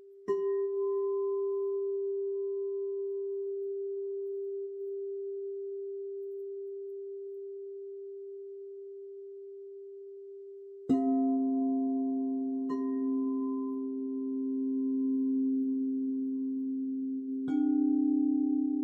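Singing bowls struck one at a time, each ringing on with a long steady tone that slowly fades. A bowl that was already sounding is struck again just after the start. A lower bowl joins about 11 seconds in and is struck again soon after, and a third bowl is struck near the end, so that several tones overlap.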